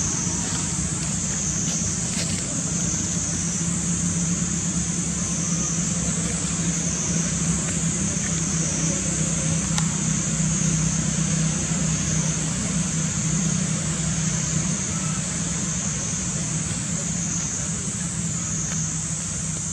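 Steady low hum of a running motor vehicle, with a constant high drone above it that wavers slowly in pitch.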